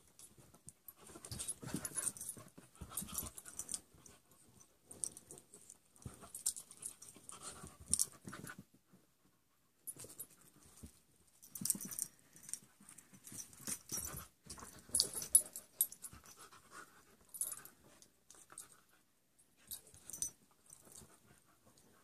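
A rat terrier and a larger mixed-breed dog play-wrestling: panting, with scuffling and rustling on a fleece couch blanket in irregular flurries and a short pause about halfway.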